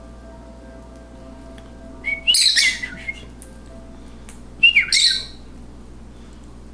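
Lovebird giving two shrill, harsh squawks, each with a falling note, a couple of seconds apart.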